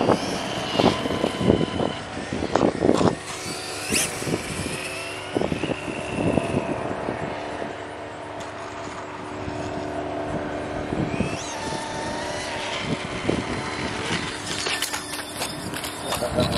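Losi Promoto-MX electric RC dirt bike running on asphalt: its brushless motor and chain drive whine, rising and falling in pitch with the throttle. The sound is louder and choppier near the start and again near the end as the bike comes closer.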